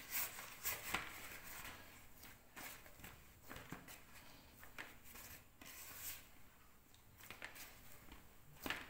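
Hands squeezing and rubbing softened butter and powdered sugar together in a plastic bowl: faint, irregular squishing and rubbing, with a few sharper taps near the start and near the end.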